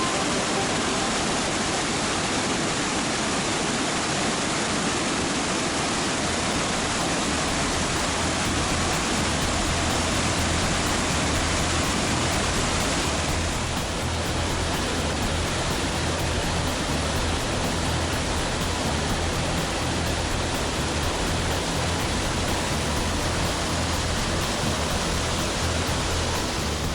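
Turbulent mountain stream rushing steadily: a dense, loud hiss of fast water.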